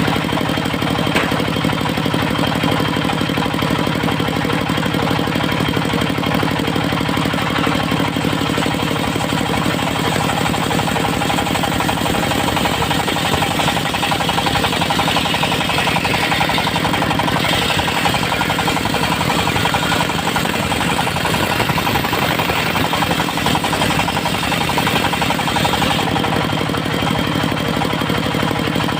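Engine of a portable circular-saw sawmill running steadily with a knocking, jackhammer-like beat, and a stretch of added hiss from about twelve to twenty-six seconds in as the blade works through teak.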